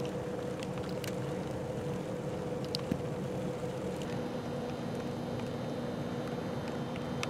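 Steady hum of a running vehicle with a constant drone and a few faint ticks; a second, lower steady tone joins about four seconds in.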